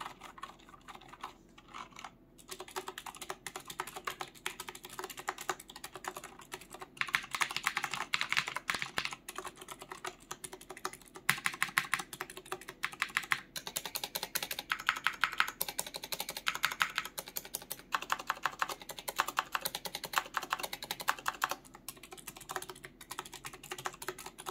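Fast, continuous typing on a first-revision Razer BlackWidow mechanical keyboard with clicky blue switches, a dense run of sharp clicks with a couple of brief pauses. With PBT keycaps on O-rings and foam packed into the case, the clack of keys bottoming out is damped and mainly the switch clicks remain.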